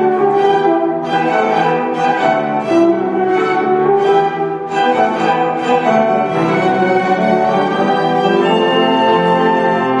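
Orchestra playing, led by violins and other bowed strings, with held notes over a steady pulse of accented strokes about twice a second.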